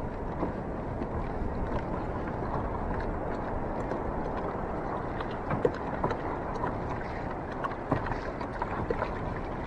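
Sea water washing and splashing around a sit-on-top fishing kayak: a steady rushing sound with a few light knocks.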